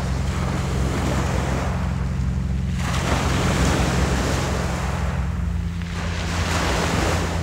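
Small waves breaking and washing up a pebble beach, swelling and fading in about three surges, over a steady low rumble of wind on the microphone.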